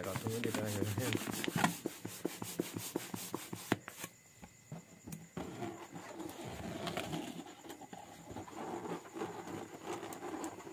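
Squeaking and rubbing of small hands on an inflated rubber balloon, with a quick run of clicks in the first few seconds. About halfway through, a baby's soft cooing and babbling takes over.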